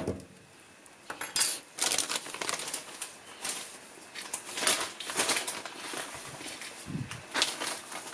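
Irregular light clinks, taps and rustles of small kitchen containers and utensils being handled, starting about a second in.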